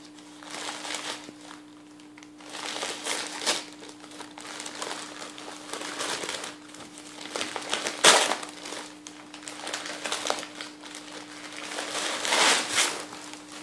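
Paper gift wrapping being crumpled and torn open by hand, in irregular rustling bursts. The loudest burst comes about eight seconds in.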